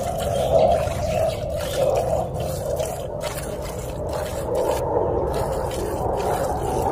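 Cow being milked by hand: streams of milk squirting one after another into a pail, with a wavering hollow swish.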